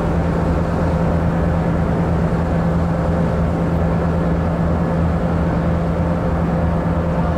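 Steady low drone of a car ferry's engines heard on board while under way, a constant deep hum with a fainter higher tone over a rushing noise.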